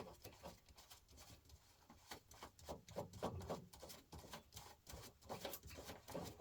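Faint scattered clicks and rubbing from hands handling the plastic and metal parts of a fluorescent light fitting being taken apart.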